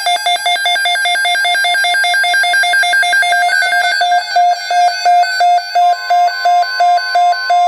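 Emergency Alert System attention tone: an electronic beeping alarm in fast pulses that slow to about two beeps a second around halfway through, with a steady higher tone joining near the end.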